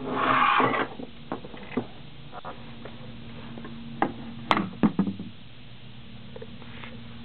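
Handling noise on a model speed boat hull: a loud rustling scrape in the first second, then scattered light knocks and taps as a hand touches the hull, clustered around the middle, over a steady low hum.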